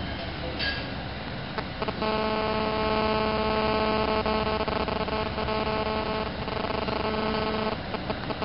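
A steady droning hum with strong overtones over a background of steady room noise. The hum starts about two seconds in and cuts off abruptly near the end.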